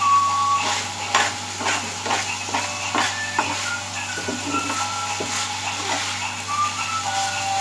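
Fish in coconut milk simmering in an aluminium pan on the stove, bubbling with irregular crackles and pops.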